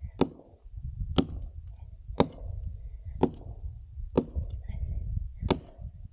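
Hand saw cutting through a fallen log, about one stroke a second, each stroke starting with a sharp click followed by a short rasp, over a low rumble.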